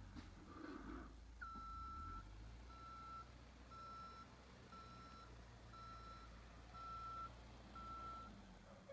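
Backhoe loader's reversing alarm beeping at one steady pitch, seven beeps about a second apart starting about a second and a half in, over the low steady rumble of its engine.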